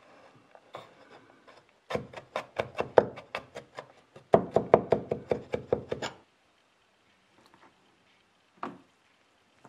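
Large kitchen knife mincing garlic on a wooden cutting board: two quick runs of chopping, about six or seven knocks a second, then quiet apart from a single thump near the end.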